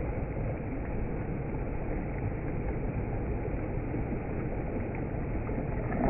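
Crișul Repede river rushing fast past a rocky bank: a steady, even rush of water, heaviest in the low end.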